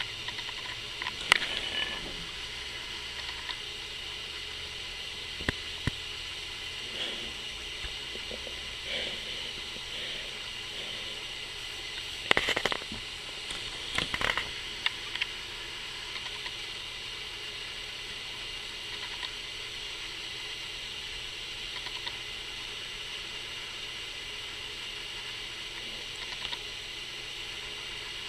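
Steady hiss with a few short clicks and rustles scattered through it, the loudest clusters about twelve and fourteen seconds in.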